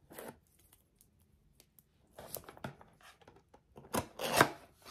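An Echo Dot's cardboard retail box being unsealed and opened by hand: a few short rubbing and scraping sounds of cardboard and sticker, the loudest about four seconds in.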